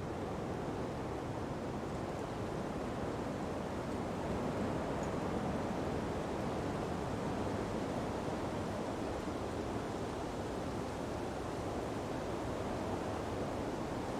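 Sea breeze blowing through palm trees with ocean surf beneath, a steady, even rushing noise.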